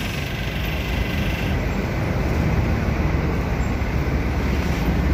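Tour coach's diesel engine running as the coach moves past at close range: a steady low rumble.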